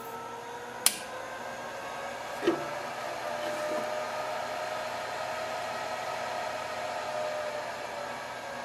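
A sharp click about a second in and a duller knock a moment later. Then a faint electrical whine from a small DC boost converter module, rising a little in pitch and holding, as it charges the inverter's big input capacitor bank, over a steady background hiss.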